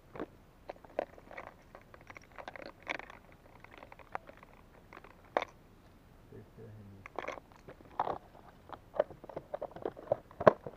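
Clear plastic tackle box and hard plastic fishing lures clicking and rattling as lures are sorted by hand, in irregular short clicks and knocks.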